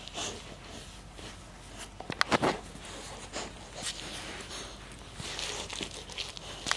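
Rottweiler puppy gnawing and mouthing a red rubber chew toy and rope toy: scattered soft clicks and chewing sounds, with a louder cluster of sharp chomps a little over two seconds in.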